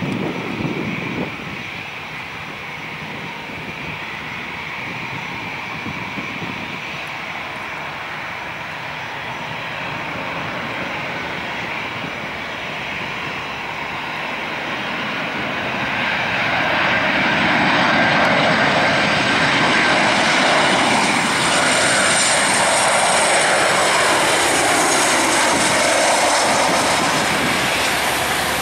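Boeing 737-800's CFM56-7B jet engines on final approach: a steady rush that grows louder about halfway through as the airliner comes close and then holds. A high engine whine slides slightly down in pitch as it nears touchdown.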